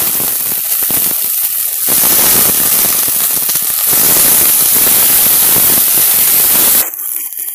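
Brinjal pieces and green chillies sizzling loudly in hot oil in a pot, just added for sautéing. The sizzle cuts off suddenly near the end.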